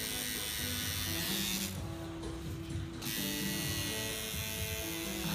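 Electric tattoo machine buzzing steadily as it works the skin. It stops for about a second a little under two seconds in, then runs again. Quiet instrumental music plays underneath.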